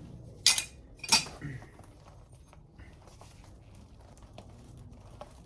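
Two sharp metallic clanks about two-thirds of a second apart, then a lighter knock and a few faint small clicks, as metal plumbing tools and fittings are handled at a water meter.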